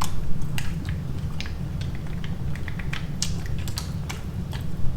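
Close-miked eating sounds: a run of small, irregular clicks and smacks from mouth, utensils and shells while eating seafood ramen.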